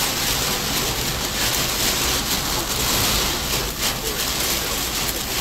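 Heavy hurricane rain pelting a truck's windshield and body, heard from inside the cab as a dense, steady rush.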